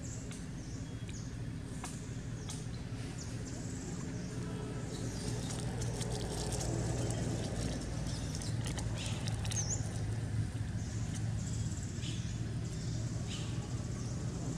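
Forest ambience: birds chirping in short, scattered calls over a steady low hum that grows louder about midway, with light rustles of dry leaves as the macaques move while grooming.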